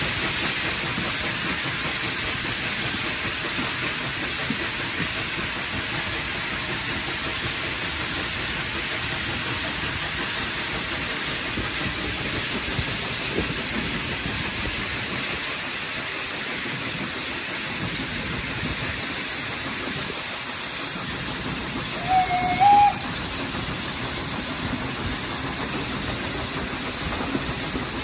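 Steady steam hiss from the open cylinder drain cocks of a Hunslet Austerity 0-6-0 saddle tank locomotive as it moves slowly. Late on, a brief steam whistle toot in two short blasts.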